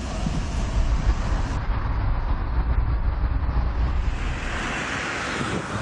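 Car driving, heard from inside the cabin: a steady low rumble of engine and road noise, with a rushing hiss swelling near the end.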